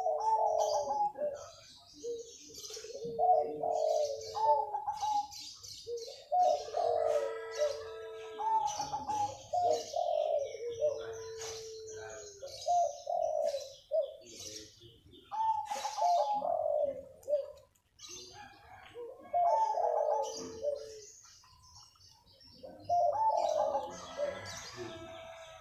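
Zebra dove (perkutut) cooing in full song: about eight repeated phrases of quick bubbly coos, several ending in a long held low note, with short pauses between. Faint high chirps from other small birds sound in between.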